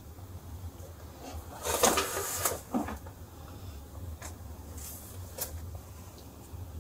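Skincare containers being handled at a bathroom sink: a brief rustling scrape about two seconds in, then a few light clicks and taps, over a low steady hum.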